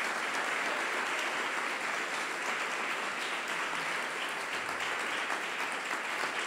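Congregation applauding steadily, a dense, even clapping.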